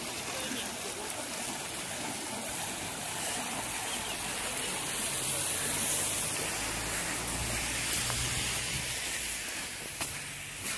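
Steady rushing hiss of water, with a deeper rumble joining in the middle.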